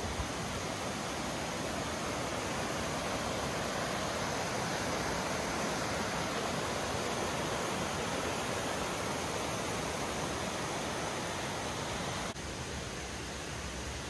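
Rushing water of a rocky mountain creek spilling over boulders and small cascades: a steady, even rush. A little over twelve seconds in it drops suddenly to a softer, duller rush.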